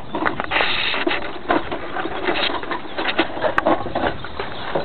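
Handling noise from a phone's microphone: irregular rubbing, scraping and small knocks as the phone is moved and covered by hand and clothing.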